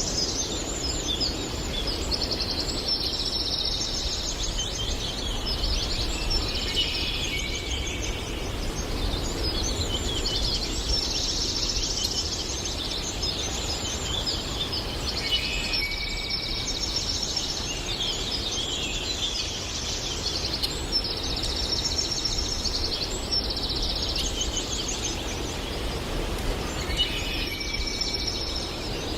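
Forest songbirds singing, with high, twittering song phrases repeating every few seconds over a steady low background noise.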